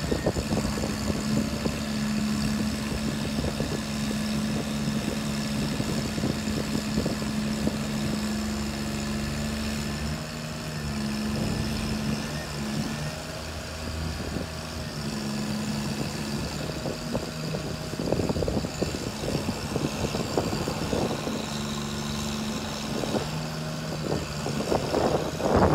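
Forestry bucket truck's engine and hydraulics running as the aerial boom is raised. The engine hum holds steady but shifts between a few pitches every few seconds as the boom moves.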